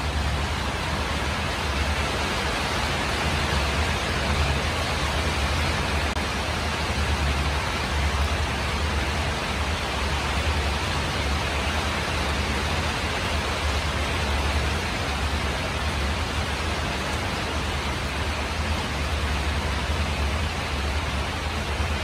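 Steady rain falling on a tin roof, an even hiss with a low rumble underneath.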